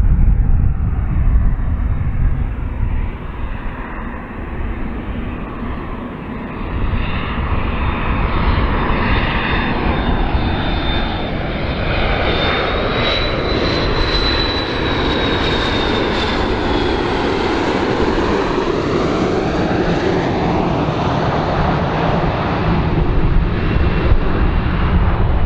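Two rear-mounted Pratt & Whitney JT8D turbofans of a McDonnell Douglas MD-82 airliner on landing approach with gear down: a steady jet rumble with a thin whistling whine. The whine rises a little and peaks about halfway through, while the noise swishes up and down in pitch.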